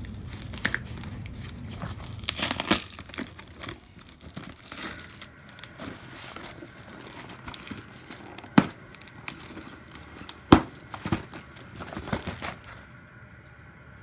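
Cardboard shipping box being handled and torn open: packing tape and cardboard flaps tearing and crinkling in irregular spells, with two sharp knocks against the box about two-thirds of the way through.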